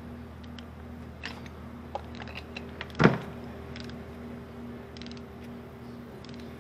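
Click-type torque wrench tightening a spark plug: a few faint ticks, then one sharp click about three seconds in as the wrench reaches its set torque, over a steady background hum.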